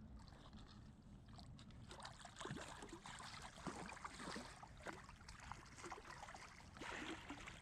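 Creek water splashing and trickling in irregular small strokes over a low steady rumble of wind on the microphone.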